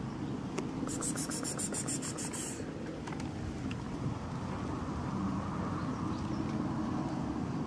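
An insect trilling: a short run of rapid, evenly spaced high-pitched pulses about a second in, lasting under two seconds, over a steady low rumble.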